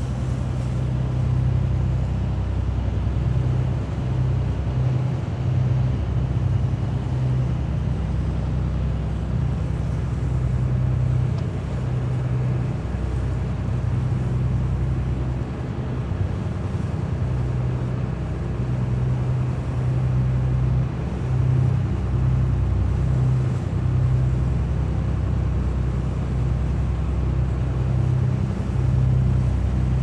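A boat's engine running with a steady low drone.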